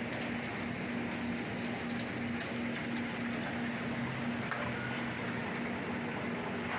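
LogRipper-300 scragg mill running steadily: an even mechanical noise with a constant low hum, and light scattered clicks.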